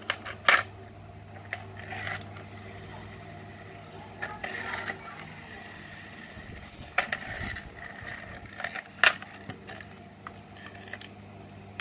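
Scattered clicks, knocks and short rattles from a die-cast toy tractor being handled, its plastic parts and rubber-tyred wheels turned and set down on a mat, over a faint steady hum.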